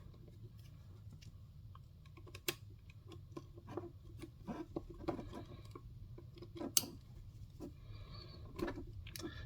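Faint, irregular small clicks and taps of a battery lead's plastic plug and wires being worked into a tiny circuit-board connector by hand. Two sharper clicks stand out, about two and a half seconds and seven seconds in.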